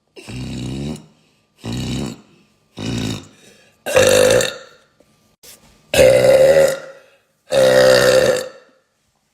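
A young woman burping six times in a row. Each pitched burp lasts under a second, with short silent gaps between them, and the last three are louder than the first three.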